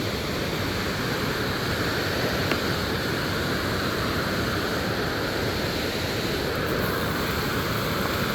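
Water pouring over a small dam spillway, a steady rushing of falling water.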